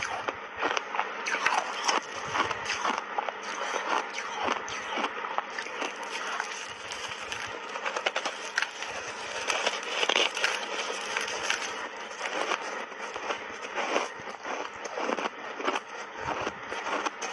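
Close-miked crunching and chewing of refrozen ice chunks coated in matcha and milk powder, a dense, continuous run of sharp cracks and crackles as the ice breaks between the teeth.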